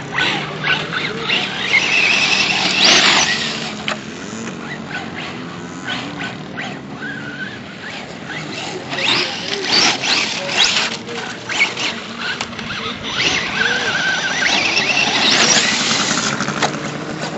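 Brushless electric motor of a Traxxas Stampede 4x4 RC truck (2400 kV motor on a Mamba Max Pro controller) whining as it is throttled up and eased off, the pitch rising and falling. The whine is loudest about two to three seconds in and again near the end.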